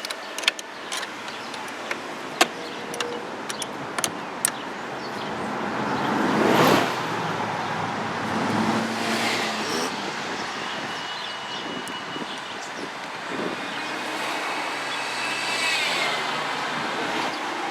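Scattered sharp metallic clicks and taps of a wrench working the carburetor mounting nut on a Force 9.9 hp outboard, mostly in the first few seconds. A car passes by, swelling up to a peak a little before the middle and fading away.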